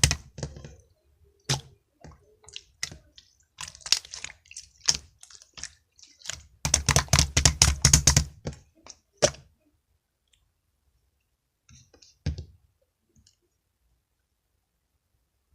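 Runs of rapid sharp clicks, about a dozen a second, at the start and again from about 7 to 9 seconds in, with scattered single clicks between. After that it is mostly quiet except for a short cluster of clicks near 12 seconds.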